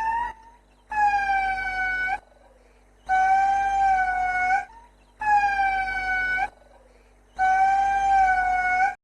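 Chimpanzee giving a run of long, high, steady-pitched calls, about one every two seconds, each ending with a slight upward flick.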